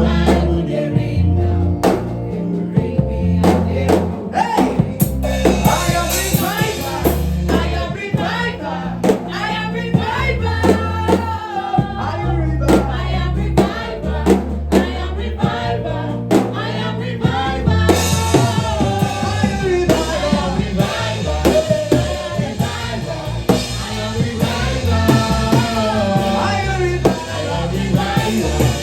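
Gospel worship music: voices singing over drums and a bass line with a steady beat.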